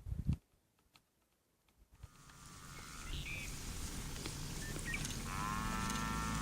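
A brief thump right at the start. Then a large animal calling: a short faint call about two seconds in and a longer, stronger call near the end.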